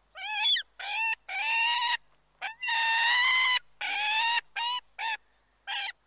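Bald eagle calling: a series of about nine high, whistled piping calls, some short and some drawn out for most of a second, the first one wavering in pitch.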